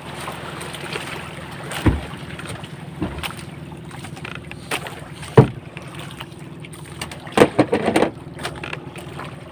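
Steady drone of a small outrigger fishing boat's engine running under way, with water rushing along the hull. A few sharp thumps break through, the loudest about five seconds in and a short cluster near the end.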